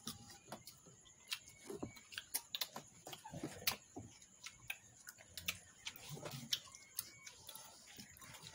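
Eating noises: irregular, sharp clicks and crunches of people chewing mango pieces and dipping them into a bowl of chili sauce, several a second, with faint murmurs between.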